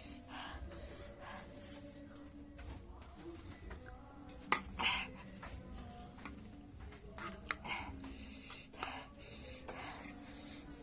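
A person eating spicy noodles with green chillies, making short noisy mouth sounds every second or few seconds, with one sharp click about four and a half seconds in, over faint background music.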